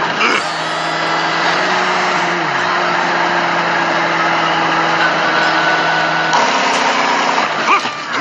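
A vehicle engine running steadily, with a low hum under a wide noisy wash. About two and a half seconds in, a tone glides down in pitch, and the sound changes about six and a half seconds in.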